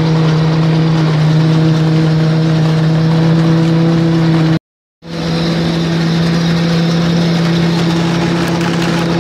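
Tractor engine running steadily at a constant speed, driving a chestnut husking machine: an even hum under the noise of the machine at work. The sound cuts out for about half a second midway, then resumes unchanged.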